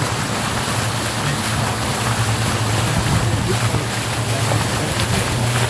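Tour boat's motor running steadily: a low, even hum with a rushing hiss of water and wind over it.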